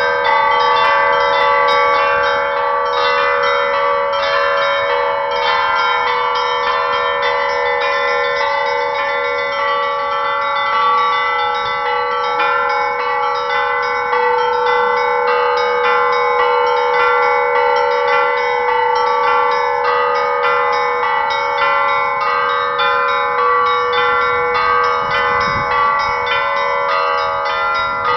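The Pakshenga church bells rung in a continuous Russian Orthodox peal: rapid repeated strikes of the smaller bells over the lasting ring of the larger ones.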